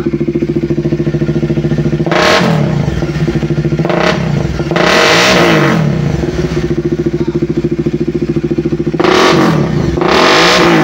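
Bajaj Dominar 400's single-cylinder engine idling through an SC Project short canister exhaust, with the throttle blipped five times, each rev rising and dropping back to idle. A loud exhaust, which the owner found too loud.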